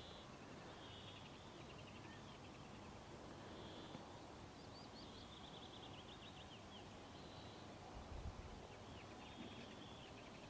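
Faint, distant Arctic terns calling repeatedly, short calls and quick chattering series over a steady background hiss. There is a brief low thump about eight seconds in.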